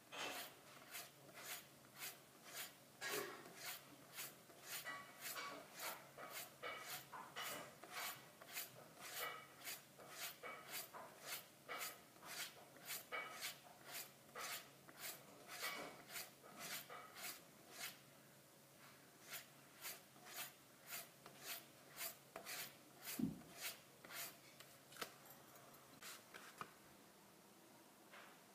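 Kamisori straight razor being stropped on a hanging strop: even strokes at about two a second, with a short pause about two-thirds of the way in and the strokes stopping near the end. One louder thump falls in the second run of strokes.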